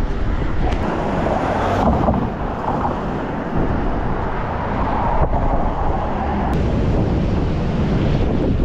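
Strong wind buffeting the microphone, a steady rushing rumble that doesn't let up.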